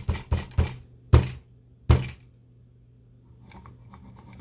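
A clear plastic display stand loaded with balisong butterfly knives being shaken: a quick run of knocks and thunks, the two about a second and two seconds in the loudest, as the knives knock about and slide in their slots. Faint small clicks follow near the end.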